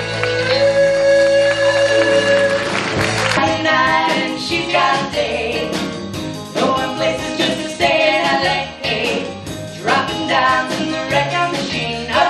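Musical-theatre singing with accompaniment: a man holds one long sung note over sustained chords, then about three seconds in the music changes to an upbeat number with the cast singing together over a band.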